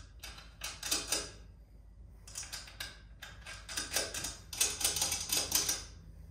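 Clusters of quick small metallic clicks and clinks, densest in the second half: loose suspension hardware being handled as nuts are set on the top mount of a coilover strut.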